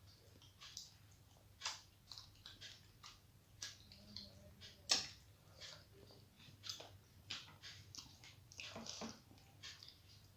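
Close-miked chewing of a person eating rice and curry: irregular wet mouth smacks and clicks, a few a second, the sharpest about five seconds in.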